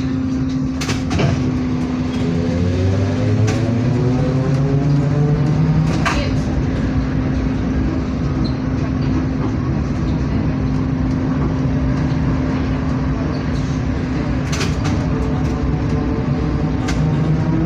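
ZiU-682G trolleybus heard from inside the cabin while it drives. The traction motor's whine rises in pitch as it accelerates, once about two seconds in and again near the end, over a steady hum, with a few sharp clicks.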